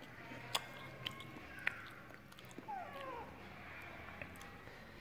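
A few crisp crunches of someone chewing krupuk crackers, then, about three seconds in, a short, soft, falling meow from a begging kitten.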